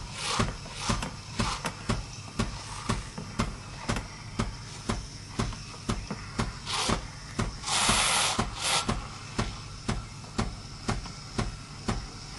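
AEG A Modo Mio Favola espresso machine steaming milk through its steam spout: a steady pulsing tick a little more than twice a second as the machine works, with a burst of steam hiss about eight seconds in.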